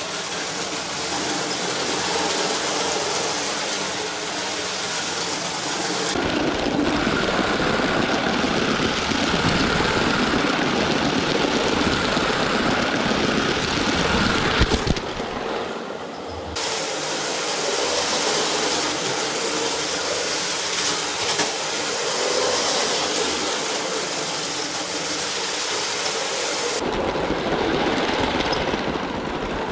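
Motorized toy brick train running on plastic track: its electric motor whirring and wheels rattling over the track joints in a continuous noisy clatter. The sound shifts abruptly in level and tone a few times.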